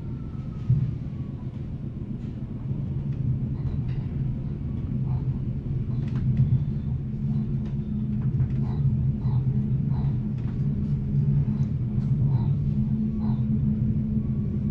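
Steady low rumble of a moving regional passenger train heard from inside the carriage, growing louder a few seconds in. Faint light clicks, two or three a second, run through the second half.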